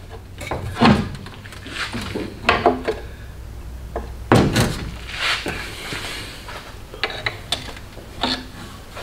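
Irregular metal clunks, knocks and scrapes, about eight in all, as a long-handled wrench is fitted and worked around the front crankshaft pulley of a 1966 Ford Falcon engine. The loudest knock comes about four and a half seconds in.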